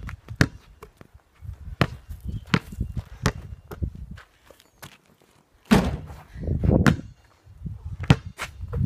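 A basketball bounced on a concrete driveway, a string of sharp thuds about a second apart, followed near the end by a louder rush of noise and one sharp thump.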